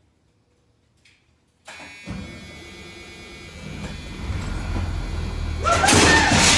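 School bus engine starting about two seconds in and then running, growing steadily louder: the start shows that grounding the emergency-door alarm wire has cleared the starter interlock. Near the end a loud high-pitched call, rising and falling in pitch, sounds over the engine.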